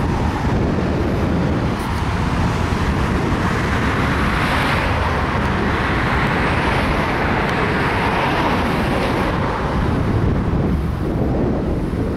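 Road traffic passing on a city street: tyre and engine noise that swells through the middle and fades again, over a steady low rumble.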